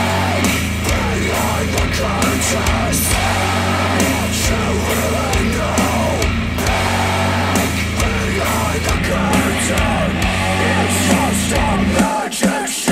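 Rock music played back through Polk Audio R200 bookshelf speakers driven by an Audiolab 6000A integrated amplifier. About twelve seconds in, playback switches to KEF Q350 speakers and the steady bass drops away.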